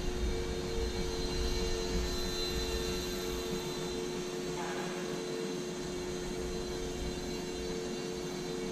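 Small electric motor and propeller of a Microaces Airco DH.2 micro RC biplane in slow flight, a steady drone holding a near-constant pitch.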